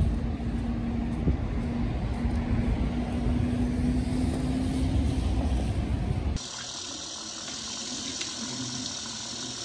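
Low outdoor rumble of road traffic with a steady engine hum. About six seconds in it cuts to the quieter hiss of tap water running and splashing into a sink.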